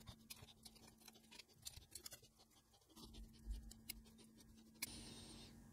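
Near silence with a few faint, scattered clicks and scratches: fingers handling a small circuit board and bending over the wire legs of LEDs pushed through it.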